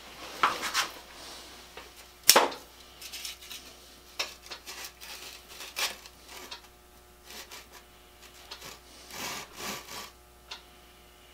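Handling of metal tools at a treadle grinder's tool rest: scattered knocks, scrapes and rubs, with one sharp knock about two seconds in and a couple of longer scraping rubs near the end.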